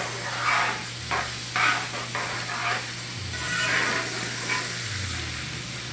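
Flour-dredged shrimp deep-frying in hot oil in a heavy skillet, sizzling, while a metal spoon stirs them with light scrapes against the pan. The sizzle rises and falls in waves.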